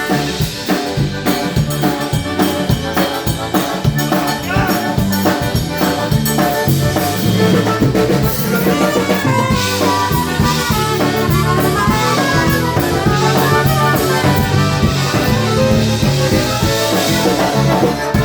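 Live polka band playing: a drum kit keeps a steady beat under brass horns.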